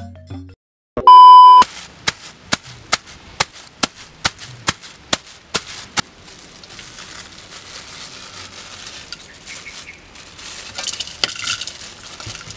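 A loud, steady high beep lasting about half a second, followed by a run of about ten sharp clicks at roughly two a second. Then plastic bags crinkle and rustle as hands open packets of chopped chili and seasoning over a metal pot.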